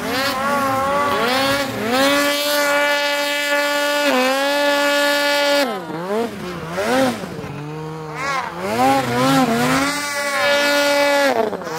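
Snowmobile engine revving: it climbs and holds at high revs for a few seconds, then drops and rises again as the throttle is worked on and off.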